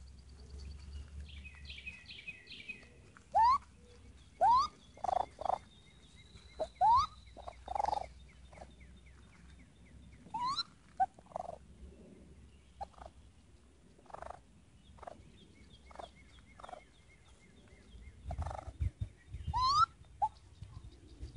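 Baby raccoon kit calling with short, bird-like chirps that sweep upward in pitch, repeated irregularly every second or so. Birds sing faintly in the background.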